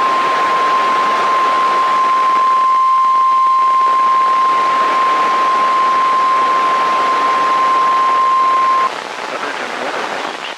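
NOAA Weather Radio's single-pitch alarm tone, about 1 kHz, held steady for about nine seconds over radio static, then cutting off sharply to leave only the static hiss. This tone is the alarm that precedes a broadcast weather warning.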